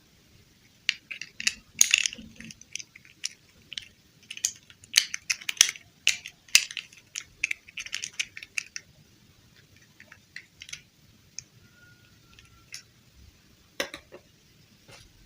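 Plastic packaging and doll parts being handled, a quick run of crinkling and clicking for the first several seconds, then only scattered clicks with a sharper knock near the end.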